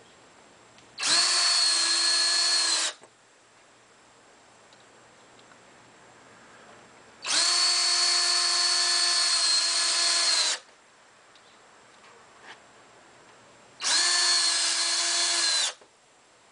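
Cordless drill driving screws into a trailer's sheet-metal skin: three runs of about two, three and two seconds, each a steady whine that holds its pitch and stops abruptly.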